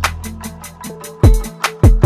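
Background music: a hip-hop style beat with deep bass-drum hits that fall in pitch and quick, even hi-hat ticks.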